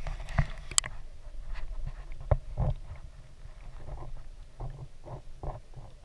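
Muffled, irregular clicks and knocks over a steady low rumble, recorded with the camera under water.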